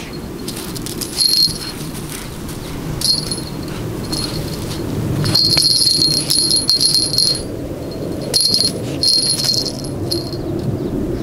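A small jingle bell on a cat wand toy jingles in short, irregular bursts as a kitten bats and bites at it. There is a longer stretch of jingling near the middle.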